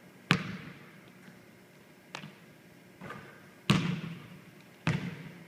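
Basketball bouncing on a hardwood gym floor: five sharp bounces at uneven intervals, the loudest about two-thirds of the way through, each ringing on in the gym's echo.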